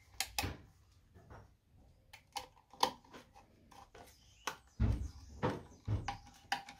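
Metal socket faceplate being pushed onto its metal back box and screwed down with a screwdriver: scattered light clicks and taps, with a few louder knocks about five seconds in.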